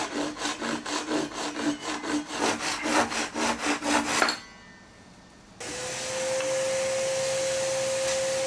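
Hand saw cutting an oak board with quick, even back-and-forth strokes, about three a second, stopping about four seconds in. After a short pause, a steady hum with a constant whine starts and keeps on.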